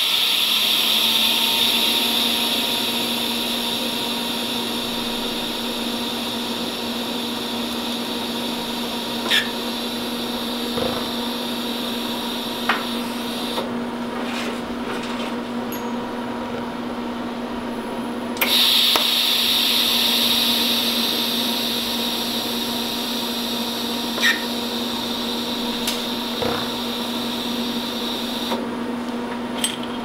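TIG welding arc on stainless steel, a steady hiss with a low hum, as a fitting is fused. The high part of the hiss drops away for several seconds in the middle and again near the end, and a few short clicks stand out.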